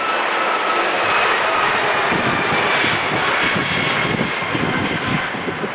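Airbus A340-600's four Rolls-Royce Trent 500 turbofans as the airliner flies past overhead: a steady jet roar with a faint fan whine drifting slowly lower in pitch, and a rough low rumble that builds in the second half.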